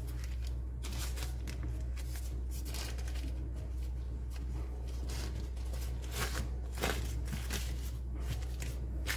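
Baking paper rustling and crinkling in a series of short rustles as a ready-rolled pastry sheet is unrolled and smoothed flat by hand, over a steady low hum.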